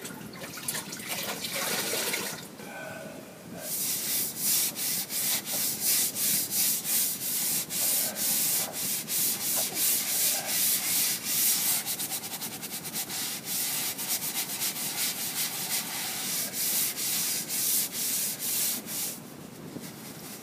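Damp sponge rubbed over dried joint compound on drywall: wet-smoothing a patched crack instead of sanding it. The scrubbing starts about three or four seconds in and goes on in even strokes at about two a second, easing off briefly near the end.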